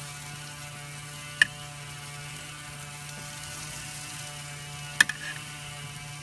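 A steady mechanical hum with fixed tones, broken by two sharp clicks, the first about a second and a half in and the second about three and a half seconds later.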